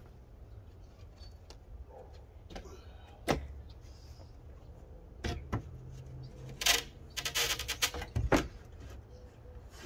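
A sheet of OSB being handled and set into a wooden stud frame: a sharp knock a few seconds in, then several more knocks and a short rapid clatter of board against studs.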